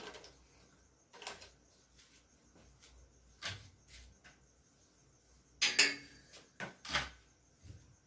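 Plastic clothes hangers clacking and clothes rustling as laundry is hung up to dry: a handful of short, scattered clicks and knocks, the loudest near the end.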